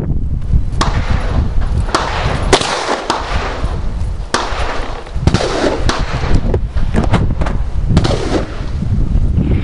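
AR-15 rifle with a GoGun muzzle brake fired in a string of single shots at an uneven pace of roughly one a second. Wind buffets the microphone throughout.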